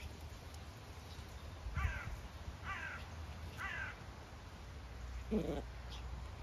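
A crow cawing three times, evenly spaced a little under a second apart, each call falling in pitch. A shorter, lower sound follows a couple of seconds later.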